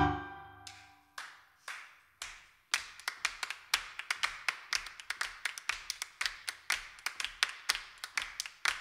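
The last sung and piano chord dies away in the first second. Then a group of performers claps in rhythm, a few spaced claps at first, about two a second, and from about three seconds in a quicker, steady clapping pattern with a low thump on the main beats.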